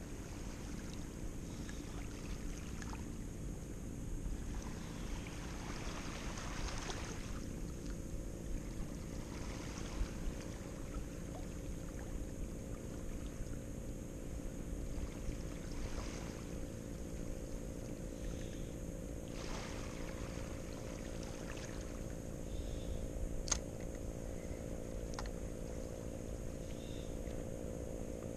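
Small waves washing on a rocky shore and wind on the microphone, over a steady low drone, with a few light clicks, the sharpest about two-thirds of the way in.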